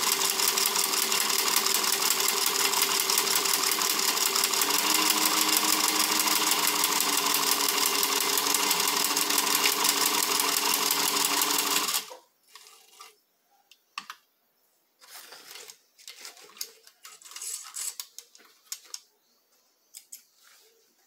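Singer 15C straight-stitch sewing machine running at a steady fast pace, stitching a hem in thin fabric, its hum shifting in pitch about five seconds in. It stops suddenly about twelve seconds in, followed by scattered light clicks and rustles.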